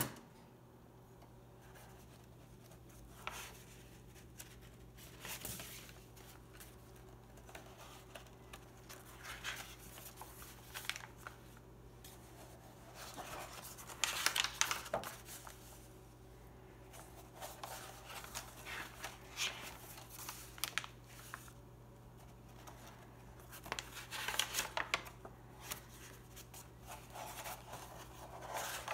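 Stiff, crinkled paper pages of a replica Necronomicon prop book being turned and handled: scattered dry rustles, loudest about 14 seconds in and again about 24 seconds in, over a faint steady low hum.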